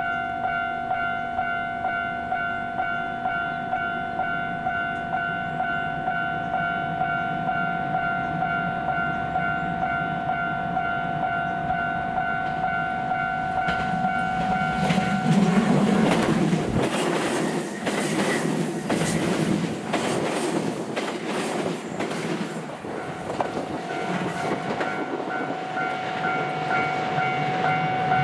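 JR West 227 series electric multiple unit climbing a steep grade under power, approaching, passing close by about halfway through with its wheels clacking over the rail joints, then running away. A pulsing ringing tone, about one and a half rings a second, sounds under it, drowned out while the train passes and heard again near the end.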